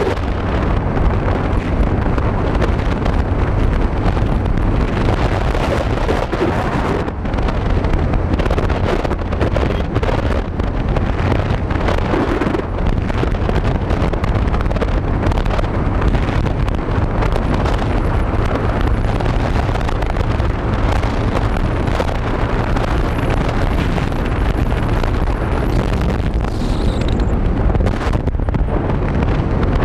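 Heavy wind buffeting the microphone on a moving motorcycle, steady and loud, with the bike's engine running underneath.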